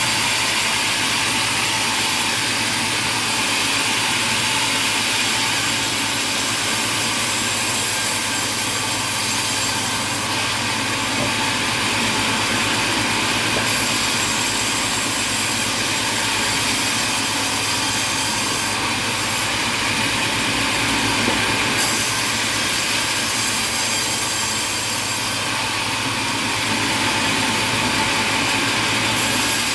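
Sawmill machinery running, a loud steady noise with no clear cutting strokes, its treble shifting slightly a few times.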